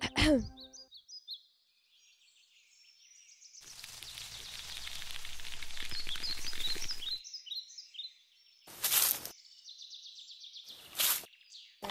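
Outdoor woodland ambience with small birds chirping. About four seconds in, a hiss swells for some three seconds and cuts off abruptly, and later come two short rustling steps about two seconds apart.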